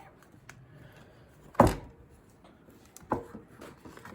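Hands working a small bicycle tire's bead onto a narrow rim: quiet rubber-and-rim handling noise with a sharp knock about a second and a half in and a smaller one about three seconds in.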